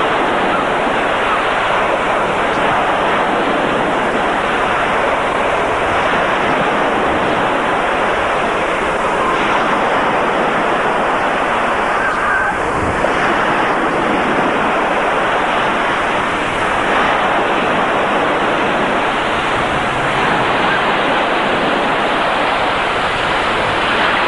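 Steady rushing noise of wind and waves, even and unbroken.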